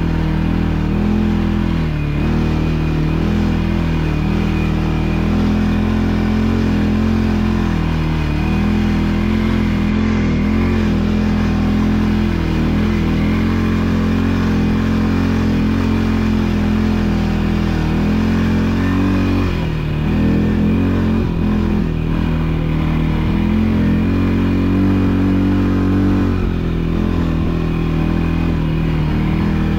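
ATV engine running under way, its pitch rising and falling with the throttle, with a short drop and pick-up about twenty seconds in.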